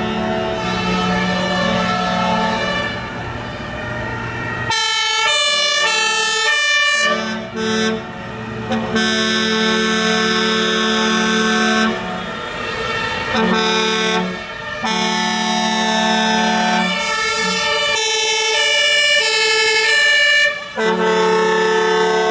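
A column of fire engines driving past with sirens and horns sounding: overlapping long held blasts that step between pitches and break off briefly, louder from about five seconds in.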